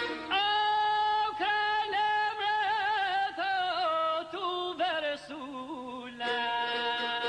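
Albanian folk singing: a single male voice sings long, heavily ornamented phrases whose pitch wavers and slides downward, then holds a steadier note about six seconds in.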